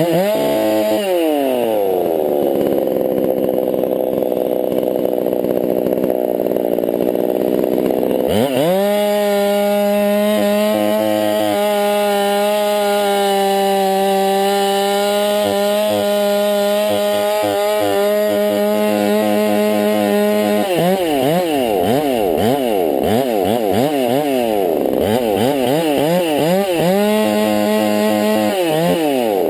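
Walkerized (modified) Husqvarna 390 XP two-stroke chainsaw bucking an arbutus log. It drops back to a low, uneven run, revs up sharply about 8 seconds in and holds steady at full throttle through the cut for about 12 seconds, then wavers up and down before a short burst at full throttle near the end.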